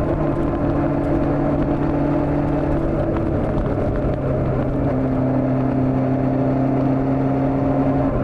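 Honda CB400 motorcycle engine running at a steady cruise under rushing wind noise; its steady hum drops in pitch twice, about a third of the way in and again just past halfway.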